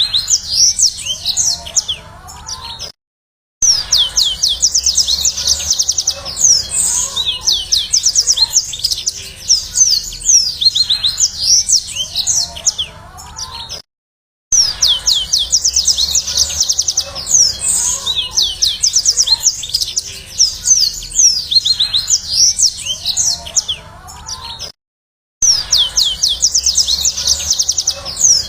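Yellow-fronted canary (Mozambique canary) singing a fast, high trilling song of rapidly repeated down-slurred notes. The song breaks off into short silences three times where the recording loops.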